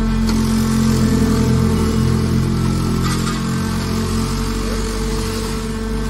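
Hydraulic scrap metal baler's power unit running under load as the ram pushes a compressed bale of scrap metal out of the chamber. A steady hum carries a deeper labouring drone that swells about a second in and eases off toward the end.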